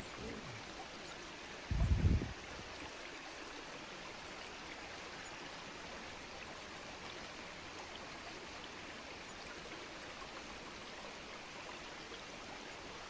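Rainforest stream running over rocks: a steady, even rush of water. About two seconds in there is one brief low thump.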